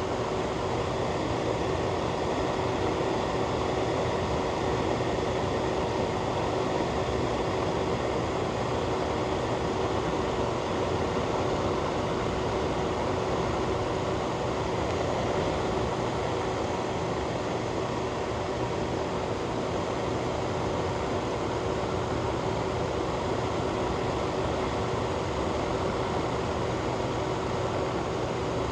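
Fan running steadily: an even rush of moving air with a constant hum.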